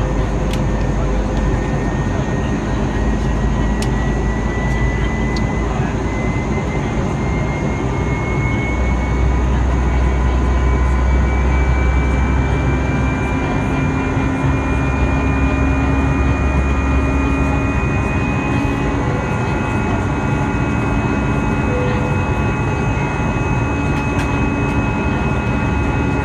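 Steady roar of an Airbus A320's CFM56 jet engines and rushing air, heard inside the passenger cabin during the climb after takeoff. A faint whine rises slowly in pitch over the first two-thirds.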